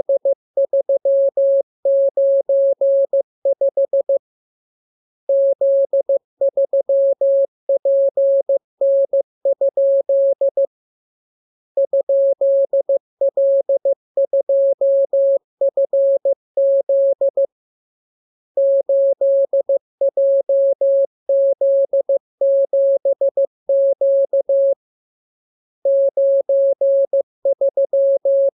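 Morse code practice signal: a single steady mid-pitched tone keyed on and off in dots and dashes. The characters are sent in runs of several seconds, separated by pauses of about a second.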